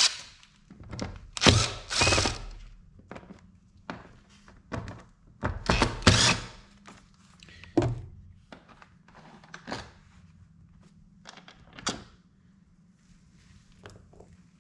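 Parts and hand tools knocking and clattering while an ATV is being taken apart: irregular clunks and clicks, loudest about a second and a half in and again around six seconds in, then sparser.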